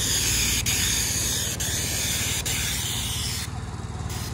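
Asphalt sealcoat spray wand hissing as liquid sealer is sprayed onto a driveway, over a steady low drone. The spray cuts off about three and a half seconds in.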